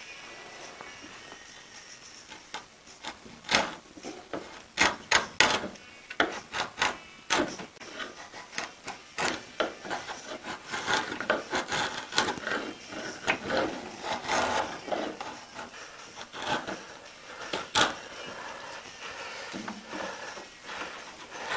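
Drawknife (pull knife) shaving a pallet-wood paddle shaft: a run of short, irregular scraping strokes as the blade peels off curls of wood. The strokes start a few seconds in.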